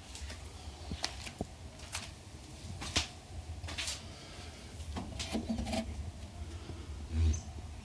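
A series of light clicks and knocks from small car parts and switches being handled, with a duller thump near the end.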